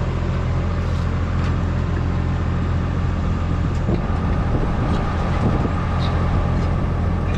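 Steady low machine hum, like a motor or engine running, with a few faint knocks.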